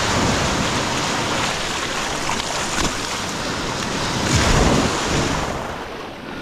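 Ocean surf breaking and washing up the shore, with wind buffeting the microphone; a wave surges loudest about four seconds in, then the wash eases off.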